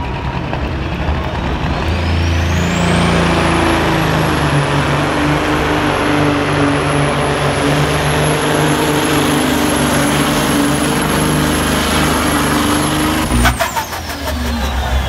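Freightliner cabover pulling semi with a Caterpillar diesel pulling the sled at full throttle, the engine climbing over the first few seconds with a high whistle that rises and then holds steady. About 13 seconds in the throttle is cut and the engine drops off suddenly to a lower run.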